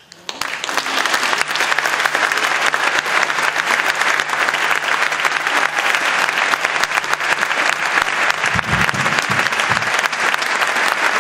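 Audience applauding at the end of a chamber-orchestra performance. The applause breaks out suddenly after silence, fills out within about a second into dense, steady clapping, and has a few low thumps about eight and a half seconds in.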